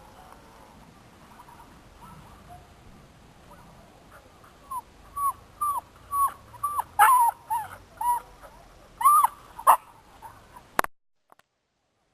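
An animal calling: a run of short calls, about two a second, beginning about halfway in, over faint background hiss.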